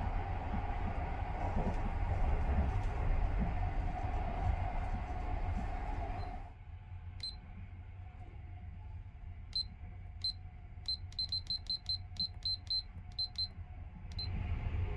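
Steady low rumble and hum of a Sunrise Izumo sleeper train running, heard inside the compartment, for about six seconds. After that, the compartment's alarm clock panel gives short high beeps, about a dozen, several in quick runs, as its buttons are pressed to set the alarm time.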